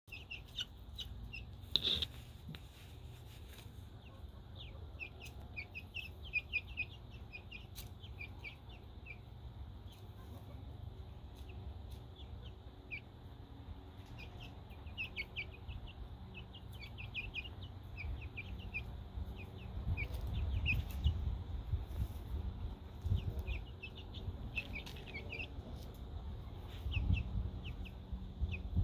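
Young silkie chicks peeping: clusters of short, high cheeps as they forage. A low rumble under them grows louder about twenty seconds in and again near the end.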